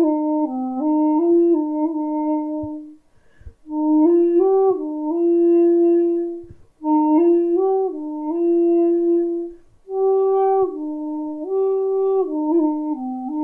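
Solo shakuhachi flute playing a melody of held notes in phrases, with short gaps between phrases about three seconds in, near seven seconds and near ten seconds.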